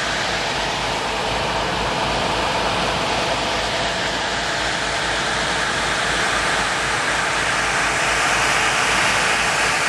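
PT boat's Packard 5M-2500 V12 gasoline engines running steadily under way at cruising speed, a constant roar, mixed with the rush of the wake and wind across the open deck.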